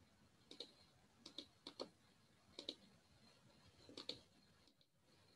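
Faint clicks of a computer mouse and keyboard, mostly in close pairs, about five pairs over four seconds.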